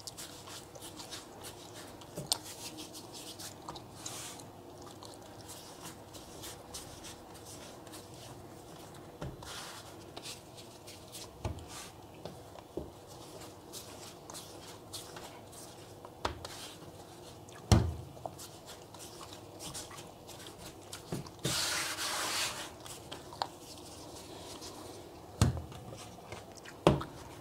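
Hands rolling and pressing pieces of bread dough into balls on a floured countertop: soft rubbing and patting with a few dull knocks, and a brief rustle about three-quarters of the way through.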